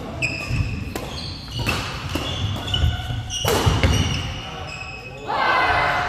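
Badminton doubles rally: rackets strike the shuttlecock several times, sharpest about one, two and three and a half seconds in, while shoes squeak and feet thud on the court floor. Voices rise near the end as the rally stops.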